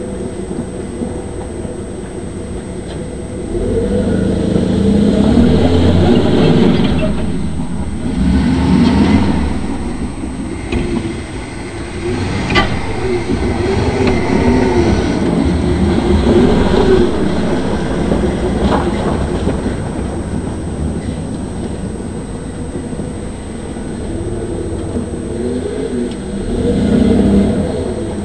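Ford F-150 pickup's engine revving up and down again and again as the truck drifts on snow over ice, its pitch rising and falling in long swells. Two sharp clicks stand out in the middle.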